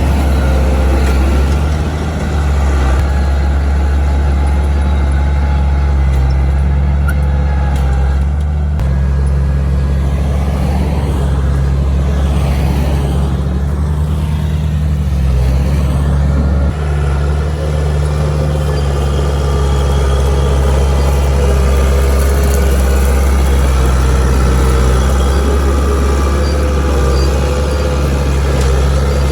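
Heavy diesel engine of earth-moving machinery running steadily at work, its pitch shifting a little now and then.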